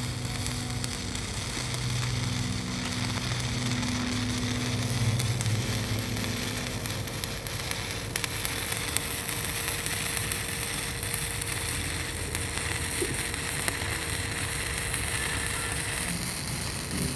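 Stick welding arc burning a 309 stainless steel electrode on carbon steel plate, a steady crackling sizzle as a stringer bead is run.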